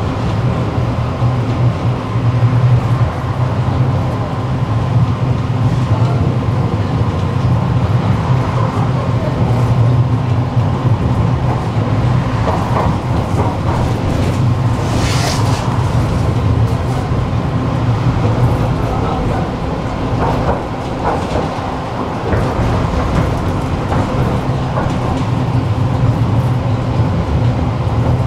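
Tram running along the track: a steady low rumble and motor hum, with clicks of the wheels over rail joints and a short hiss about halfway through.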